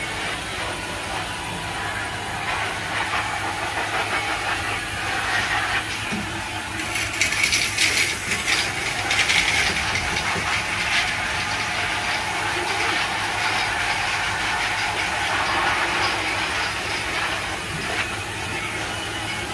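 Self-service K9000 dog-wash machine running: a steady motor hum with a hiss from its hose as it is played over a puppy, the hiss growing louder and rougher for a few seconds in the middle.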